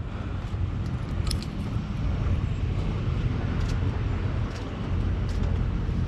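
A motor vehicle on the move: steady low engine and road rumble under a broad noise hiss, with a few faint clicks.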